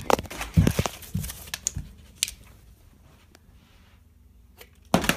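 Plastic bottle handling: a burst of small knocks and clicks for the first couple of seconds, a hush, then a single sharp knock near the end as a flipped water bottle lands upright on top of an upturned Pepsi bottle.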